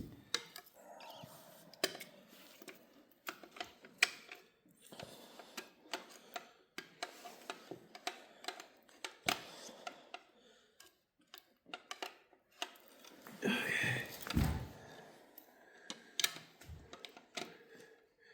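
Irregular light clicks, taps and clinks of hand tools and metal parts being handled while a Chevy 350 V8 is torn down, with one longer, louder clatter about two-thirds of the way through.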